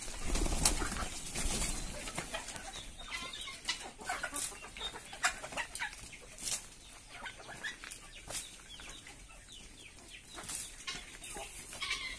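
A flock of Kerala country chickens (nadan kozhi) clucking, with scattered short, sharp taps throughout and a low rumble in the first two seconds.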